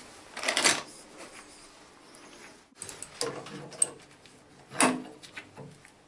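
Scattered clicks, knocks and clatters of metal plumbing fittings and hand tools being handled at a bath mixer. The louder knocks come about half a second in and near five seconds.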